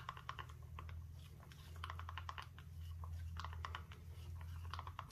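Faint, irregular light clicks and scrapes of turquoise-tinted epoxy resin being stirred in a plastic cup, over a low steady hum.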